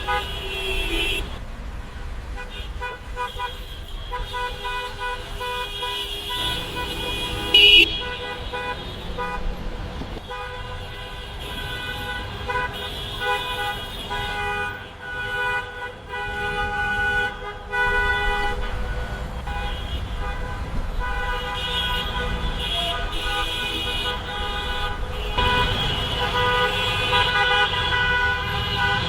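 Many car horns honking over one another in a traffic jam: overlapping steady honks at different pitches above a low traffic rumble. One short, much louder horn blast comes about seven and a half seconds in.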